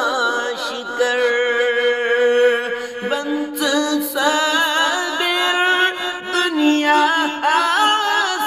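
Man singing a Kashmiri naat, a devotional song in praise of the Prophet, drawing out long wavering held notes without clear words.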